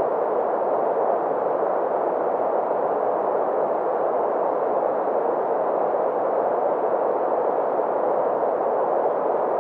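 Green noise: a steady, unchanging synthetic hiss with its energy centred in the middle range, around 500 Hz to 1 kHz, and little deep bass or high treble.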